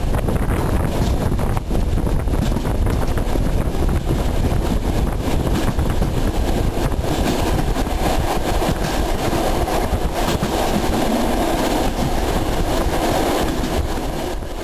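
Freight train of rail tank cars rumbling past close by, with a steady dense run of wheel and rail clatter, fading out near the end.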